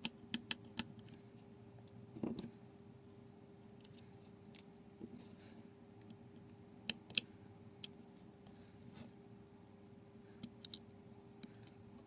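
Scattered small sharp clicks and taps of a screwdriver and a metal pry tool against the metal brackets and connectors inside an opened iPhone 6, over a faint steady hum.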